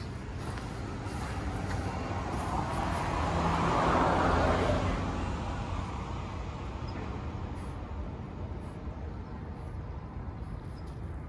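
A vehicle passing by: its noise swells to a peak about four seconds in and then fades away, over a steady low rumble.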